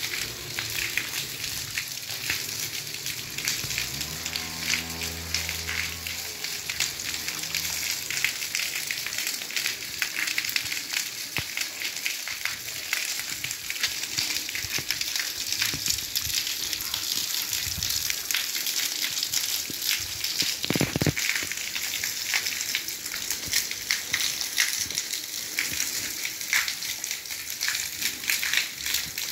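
Water from two small fountain jets spraying up out of the bowls of a cast-concrete sculpture and splashing back down onto the statue and the wet ground, a steady hiss of spray and falling drops.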